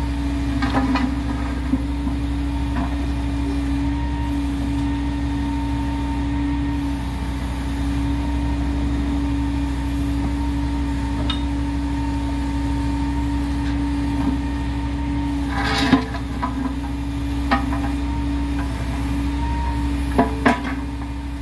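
Diesel engine of heavy track machinery running steadily with a constant hum. A few sharp metal clanks come through it: one near the start, one louder at about three quarters of the way, and two close together near the end.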